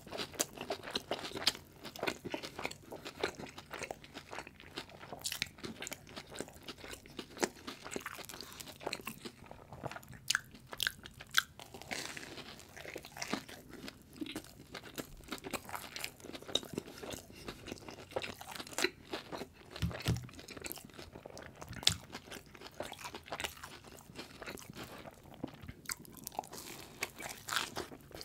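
Close-miked eating of crispy fried Korean street food: a steady run of crunching bites and chewing, with a few louder crunches scattered through.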